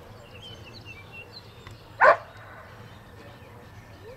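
A dog barks once: a single short, loud bark about two seconds in.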